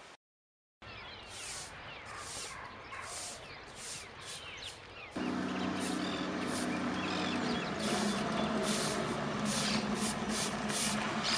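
Broom sweeping a roadside in regular scratchy strokes, about one a second. About five seconds in, the steady low hum of an approaching Ford pickup truck's engine starts and runs on under the sweeping.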